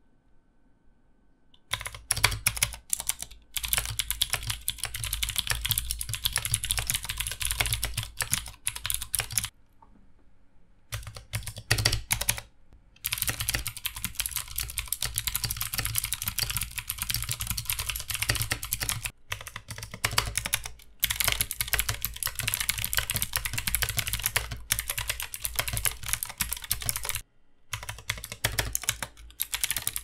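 Fast, continuous typing on a GK61 keyboard fitted with clicky mechanical switches, a dense run of sharp high clicks broken by a few brief pauses. The switches change partway through, from Cherry MX Blue to Cherry MX Green, and to Kailh Pro Light Green near the end.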